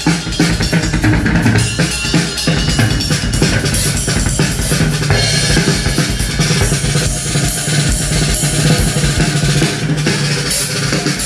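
Drum-heavy music with a strong kick drum and snare, played loud through a test rig of bare speaker drivers wired to a single amplifier: Jackhammer woofers, JBL subwoofers and Crown horn tweeters. It is a sound test of the multi-speaker wiring.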